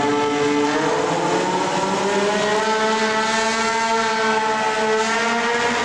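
Triumph motorcycle engine held at high revs in a stationary burnout, spinning the rear tyre against the floor. The pitch climbs a little over the first couple of seconds, then holds steady.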